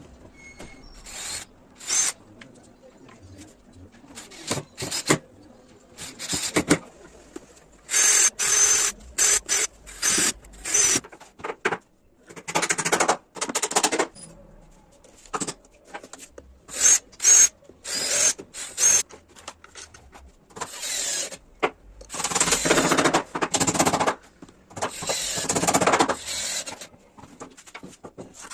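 Power tools working wood in a series of short bursts, stopping and starting many times, some bursts carrying a thin high whine.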